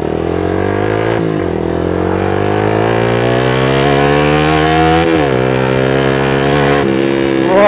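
Yamaha Vixion Lightning's 150 cc single-cylinder engine accelerating hard through the gears. The pitch climbs steadily and drops at upshifts about a second in and again about five seconds in.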